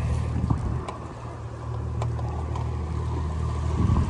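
Motorboat engine running at a steady speed, a low even hum with the rush of water and wind over it, briefly louder near the end.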